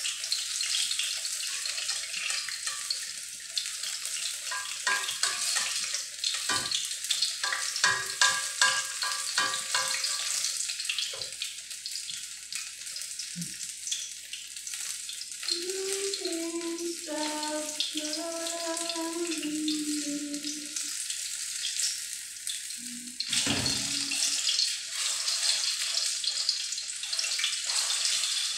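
Battered banana slices deep-frying in hot oil in a steel wok, a steady sizzle, with a run of sharp clicks as a metal spatula knocks against the wok. About halfway through, a brief pitched sound like a voice.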